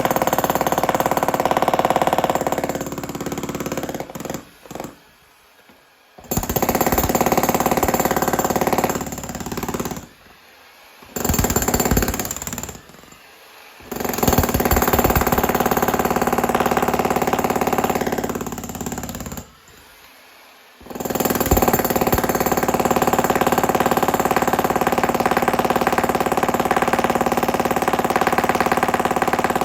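Electric demolition hammer breaking concrete, running in long loud bursts and stopping briefly four times.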